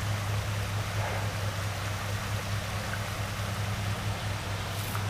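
Shallow stream water rushing over rocks, a steady even hiss, over a steady low hum.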